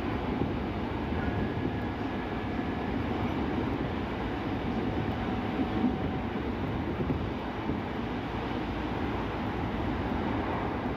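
KRL Commuter Line electric train running at speed, heard from inside the carriage: a steady rumble of wheels on rail with a couple of light knocks in the middle.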